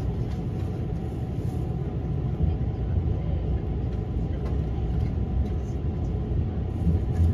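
Interior running noise of a JR West 283 series electric limited express with Hitachi IGBT inverter drive, pulling out of a station at low speed: a steady low rumble of wheels and traction motors.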